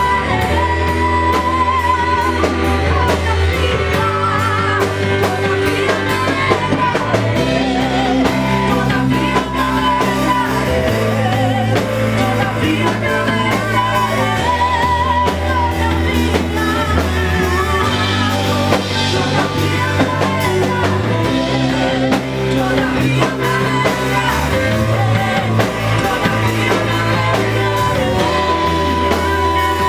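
Live Christian worship band playing a song: a singing voice over electric guitar, keyboard and drum kit, with a bass line that holds each note for a couple of seconds.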